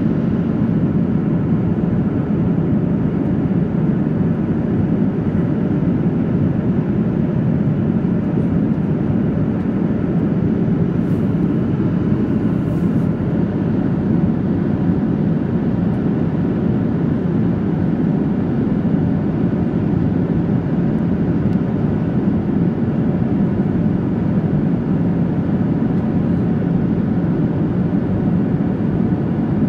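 Steady cabin noise of a Boeing 737-800 in flight, heard from inside the cabin: the even, low roar of its CFM56-7B engines and the airflow past the fuselage, with no change in level.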